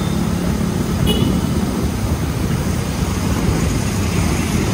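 Steady road traffic noise from cars and motorbikes, heard while riding along with a bicycle group, with a low wind rumble on the microphone.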